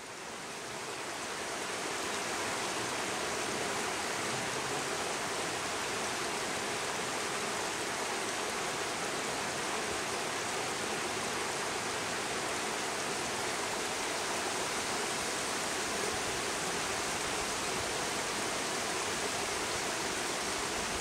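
Shallow mountain river running over stones and rocks, a steady rush of water that fades in over the first two seconds.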